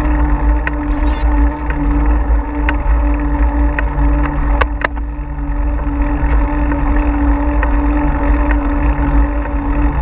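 Wind buffeting the action camera's microphone on a moving bicycle, a loud, steady low rumble with a constant hum beneath it. Two sharp clicks come in quick succession about halfway through.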